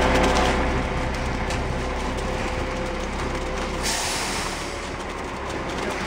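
Concrete mixer truck's engine running steadily while wet concrete slides down the steel discharge chute. About four seconds in comes a short hiss lasting about a second.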